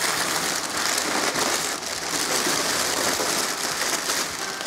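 Crumpled brown packing paper and bubble wrap rustling and crinkling steadily as hands dig through a cardboard shipping box.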